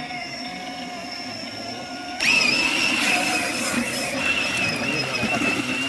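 Electric motor and gearbox whine of an RC scale crawler truck wading through muddy water. About two seconds in it suddenly gets louder and higher-pitched, with a hiss of water splashing.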